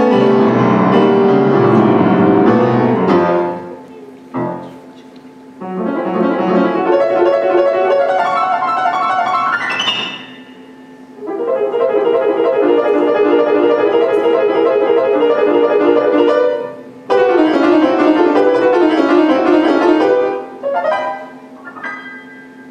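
Grand piano played solo: fast classical passages in phrases of a few seconds, broken by short pauses, with a quick upward run just before ten seconds in.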